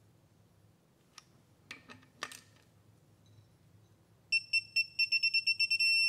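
Digital torque wrench tightening an oil pump pickup tube bolt: a few faint clicks, then rapid beeps that quicken and merge into one long steady tone near the end, the signal that the set torque of 8 foot-pounds is reached.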